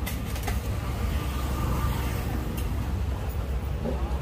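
Steady low rumble of busy street background noise, like traffic or an idling engine, with a few faint clicks.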